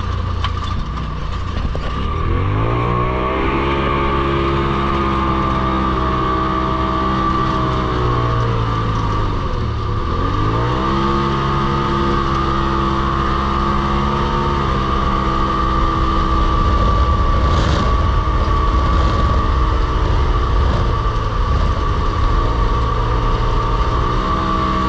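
A vehicle engine revving up under way. It eases off and drops in pitch about ten seconds in, then picks up again, with a steady high whine over it throughout.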